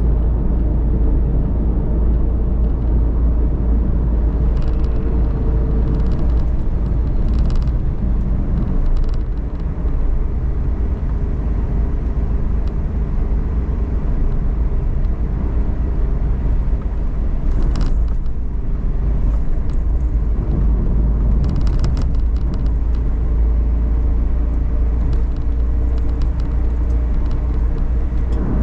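Inside the cabin of a Suzuki Every DA17V kei van while driving: steady low engine and road rumble, with a few short higher-pitched noises scattered through.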